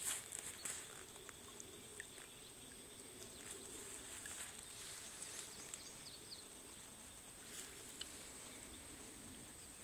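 Faint swamp ambience: a steady high-pitched insect drone, with a few faint clicks and water drips.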